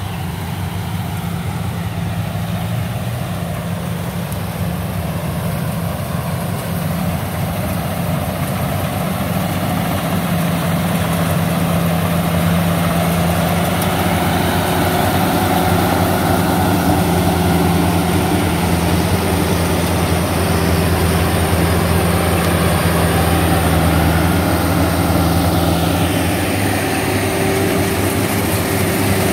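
Rice combine harvesters' diesel engines running steadily while cutting and threshing rice, with the whir of the machinery. The sound grows louder over the first half as a combine comes close.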